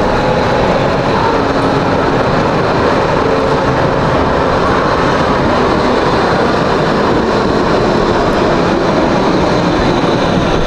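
Low-floor electric city tram running past on street rails: a steady rumble of wheels on track and running gear, with faint motor tones in it.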